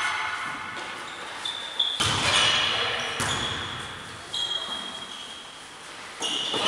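Volleyball being struck three times during a rally, sharp slaps that echo around the large sports hall, with short high squeaks of players' shoes on the court floor between the hits.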